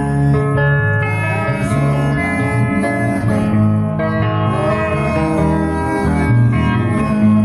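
Live band music led by plucked guitars, with changing bass notes underneath.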